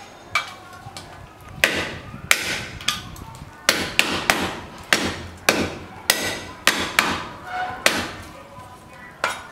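Cleaver chopping a bundle of lemongrass stalks on a round wooden chopping block: a dozen or more sharp knocks, irregular, coming about two a second through the middle.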